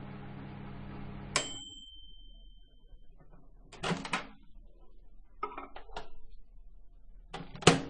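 Microwave oven humming steadily until it shuts off about a second in with a click and a single ringing ding that fades over a second or so. It is followed by door clunks and a few light clicks, with the loudest clunk near the end.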